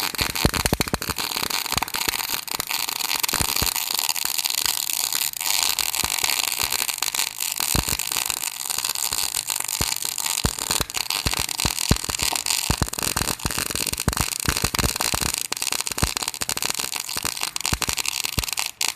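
MIG welding arc crackling and sputtering steadily as wire is fed into a crack in an engine block, a dense run of rapid pops over hiss. It starts abruptly and keeps going without a break.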